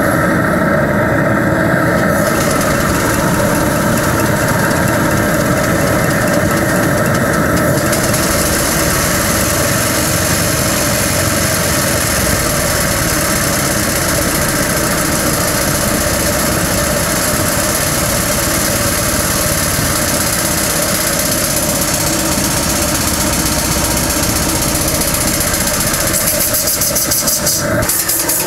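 Homemade steam engine of a steam motorcycle running steadily under load, turning generators. Steam hisses loudly from a new valve whose seal has burnt through and is leaking. The hiss grows stronger about eight seconds in.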